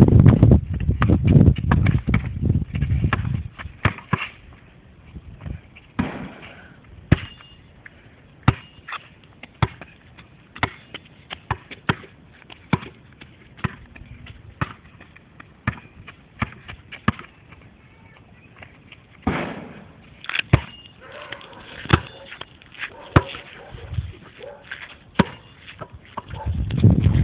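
Basketball bouncing on a hard court: a long run of sharp knocks at an uneven pace, with a few louder low rumbling stretches.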